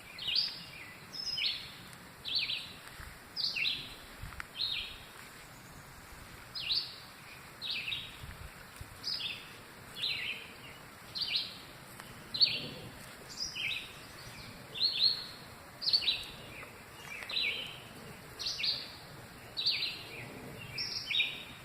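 Birds chirping: a steady series of short, high calls, each sliding downward in pitch, about one or two a second.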